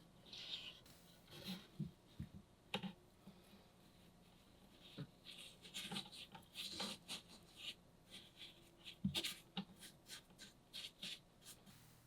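Faint, scattered clicks, taps and short scrapes at irregular intervals, from plants being worked into the sand of a small aquarium.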